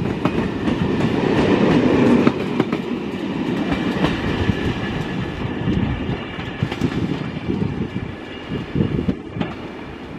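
Corail passenger coaches of a departing Intercités train rolling past, wheels clicking over rail joints and points. The sound is loudest as the last coach passes, about two seconds in, then gradually fades as the train pulls away.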